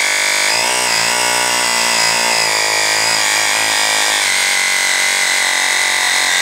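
Cheap 12 V portable car air compressor running, loud and steady, its pitch shifting slightly about half a second in; it stops suddenly at the end.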